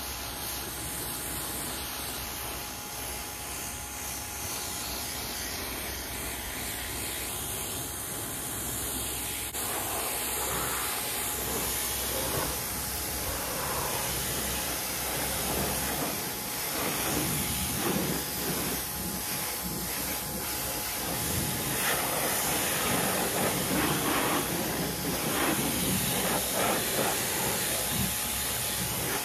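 Pressure washer spraying water onto a car, rinsing off soap foam: a steady hiss that grows more uneven and a little louder from about halfway as the spray sweeps over the body panels.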